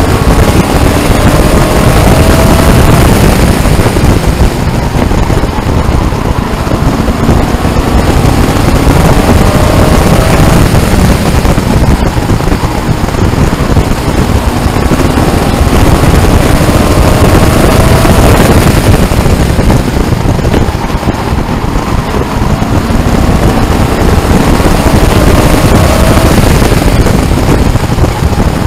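Race truck's engine under hard throttle lapping a short oval, its pitch rising along each straight and falling away into the turns, several times over, under a loud steady rush of wind and road noise.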